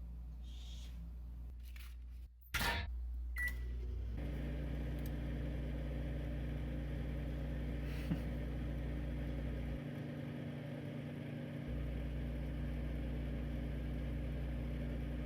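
A clunk and a single short keypad beep, then a microwave oven starts up and runs with a steady hum.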